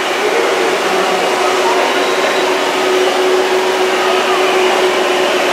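Steady rushing background noise at an even level, with a faint steady hum and a faint murmur of voices in it.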